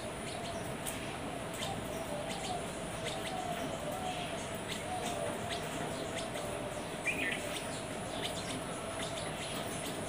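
House sparrows chirping sporadically in short, scattered notes, with a louder cluster of chirps about seven seconds in, over a faint steady hum.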